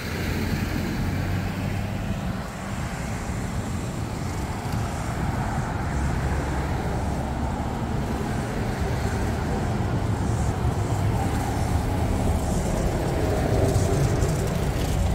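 Road traffic passing close by: cars and trucks driving past on the adjacent road, a steady rush of tyres and engines that swells toward the end.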